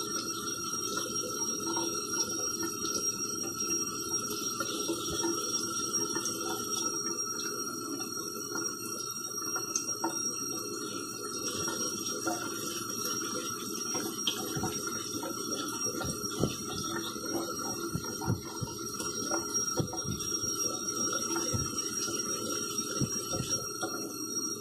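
Kitchen tap running steadily into a stainless-steel sink while a Sukenari HAP40 knife is stroked back and forth across a wet vitrified CBN waterstone. A few light knocks come in the second half.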